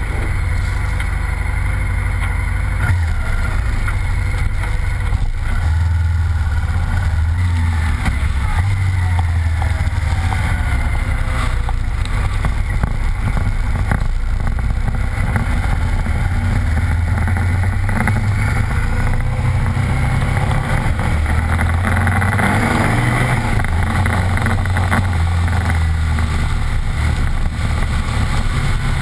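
Motorcycle engine running steadily at road speed, under a heavy rush of wind over the microphone and spray hiss from the wet road.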